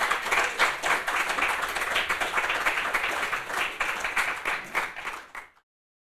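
Audience applauding, many hands clapping together, fading away and stopping about five and a half seconds in.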